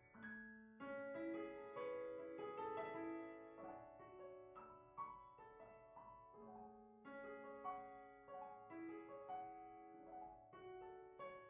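Quiet, slow background piano music: single struck notes and chords that ring on and overlap.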